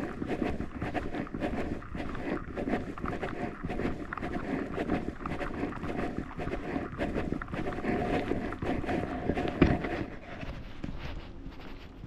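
Footsteps on wet asphalt, with one sharp knock a little under ten seconds in; the steps grow quieter and duller near the end.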